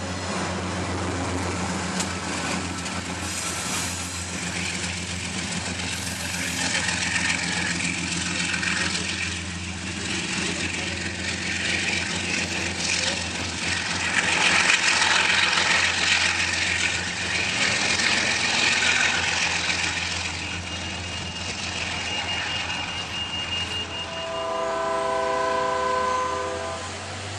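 Amtrak passenger train cars rolling past, with the train's diesel locomotive running as a steady low hum under the rumble of wheels on track. Near the end a multi-note horn sounds in long held blasts.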